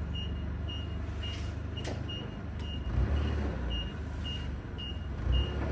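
Forklift backup alarm beeping steadily, short high beeps about twice a second, over a low engine rumble that swells a couple of times.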